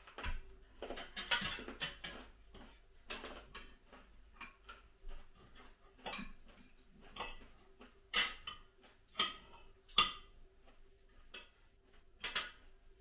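Knives and forks clinking and scraping on dinner plates as several people eat: scattered short clinks, the sharpest ones about eight to ten seconds in and again near the end, over a faint steady hum.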